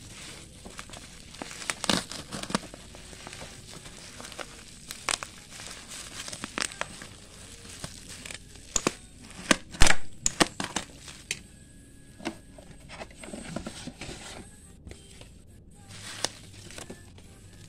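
Black plastic bubble-wrap packaging crinkling and rustling as it is handled and pulled off a parcel, with irregular sharp crackles and some tearing; the loudest crackle comes about ten seconds in.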